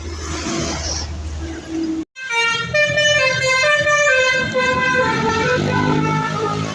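Bus 'telolet' horn, a multi-tone musical horn, playing a stepping melody of several notes, after about two seconds of the bus engine running with a hiss and a brief cut.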